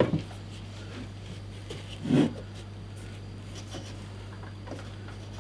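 Handling noises from an unpowered portable metal band saw being adjusted on its stand: a click at the start, a dull clunk about two seconds in, and a few light taps and rubs, over a steady low hum.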